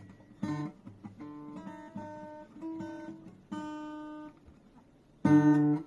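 Acoustic guitar played with strummed and plucked chords, each ringing out before the next. After a short pause comes one loud strum near the end.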